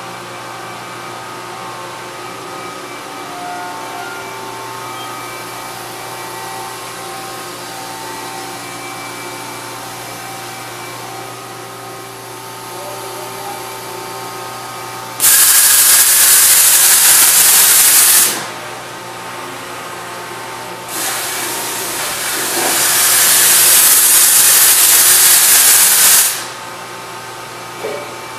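Mori Seiki NT3200 DCG multi-tasking CNC turning-milling center running with a steady hum of several tones. The hum is broken by two loud hisses from the machine. The first starts suddenly about halfway through and lasts about three seconds. The second, a few seconds later, swells in and lasts about five seconds. Both cut off sharply.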